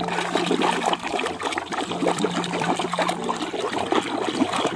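A hand swishing and scrubbing a plastic toy in a tub of water: continuous, irregular splashing and sloshing.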